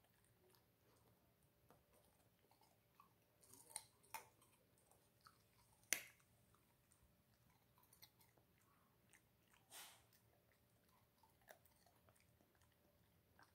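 Chow Chow chewing raw carrot: quiet, irregular crunches and clicks of teeth, with a few sharper crunches, the loudest about six seconds in.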